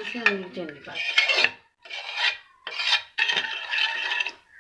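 A spoon scraping around the bottom of a pan of gram-flour milk as sugar is stirred in, in about four rasping strokes of roughly half a second each with short pauses between them.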